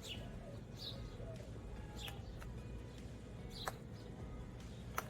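A bird chirping: short, sharp calls that sweep quickly downward, about one a second, over a low steady hum.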